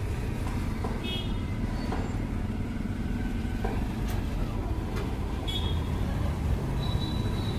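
Steady low rumble of background road traffic, with a few faint clicks.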